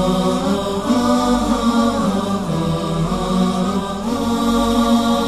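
Sad wordless vocal background: voices holding long, drawn-out 'aah' notes, stepping to a new pitch about once a second, with no instruments.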